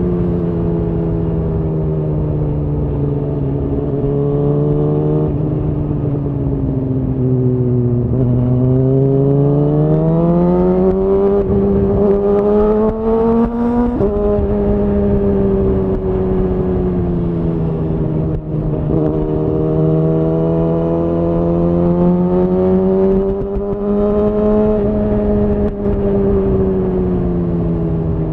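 Suzuki GSX-R1000R's inline-four engine through a Yoshimura R-11 SQ exhaust, under way. The revs sag, then climb steadily for several seconds and drop sharply about halfway through with an upshift. After that the revs hold fairly steady with gentle rises and falls.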